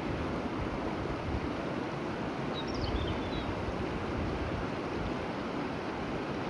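River water rushing steadily over a stony bed, with a low, uneven rumble of wind on the phone's microphone. A faint short chirp about three seconds in.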